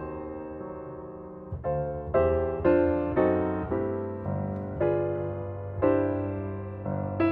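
Background piano music: slow chords and melody notes, each struck and left to die away.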